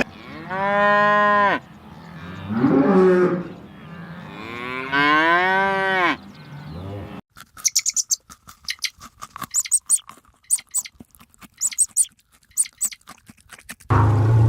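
Cow mooing: three long calls, the first rising then falling and the last rising in pitch. Then a run of quick, irregular clicks, and a different loud sound starts near the end.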